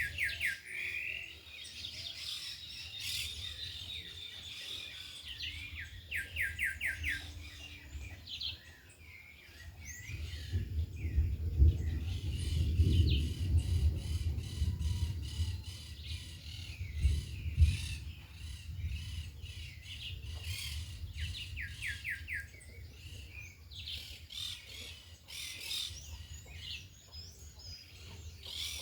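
Several birds chirping and calling over one another, including two quick runs of rapid repeated notes. In the middle, a low rumble of wind buffets the microphone.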